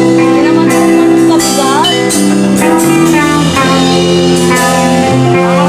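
Live rock band playing a slow song: electric guitar and bass holding sustained chords over drums, with cymbal strikes every second or so and a few sliding guitar notes.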